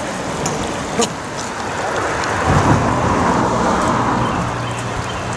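Creek water rushing steadily over a shallow rocky riffle. A low vehicle rumble swells in about two and a half seconds in.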